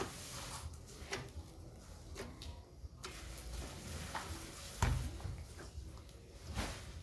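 Scattered clicks and knocks of objects being handled, with a heavier thump about five seconds in.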